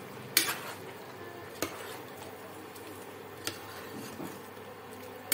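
Metal ladle stirring a thick curry in a metal pressure cooker, scraping and knocking against the pot a few times, loudest about half a second in, over a steady low hum.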